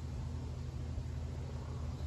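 Steady low rumble with a faint hiss over it, with no distinct events.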